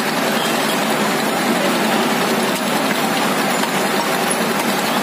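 Steady street din with an engine running, as at a roadside market beside traffic.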